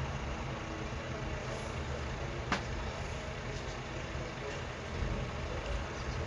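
Chicken thighs sizzling steadily in hot oil in a pan, over a low hum, with a single sharp clink about two and a half seconds in.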